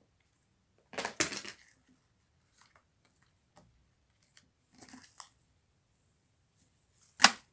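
Purple slime being stretched and pulled up off a glass tabletop: short bursts of sticky noise about a second in and again around five seconds, and a sharp snap near the end that is the loudest sound.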